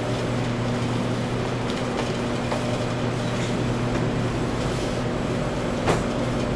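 Steady mechanical hum and hiss, with a faint knock about six seconds in.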